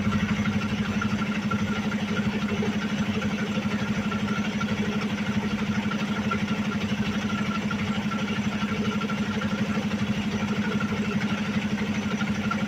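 Truck engine idling steadily: a fast, even throb under a constant low hum.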